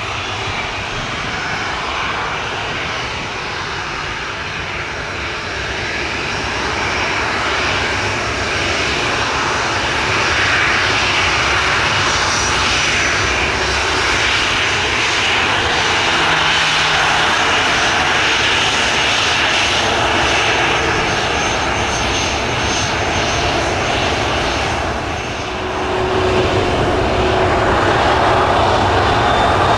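Boeing 737 airliner taxiing past, its twin CFM56 turbofan engines at low taxi power giving a steady jet whine and rush that grows louder as it approaches. The sound dips briefly near the end, then swells again as the aircraft passes side-on.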